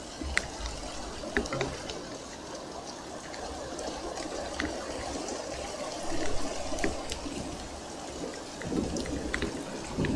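Steady rain falling, with single drops ticking sharply as they hit. It swells louder about six seconds in and again near the end.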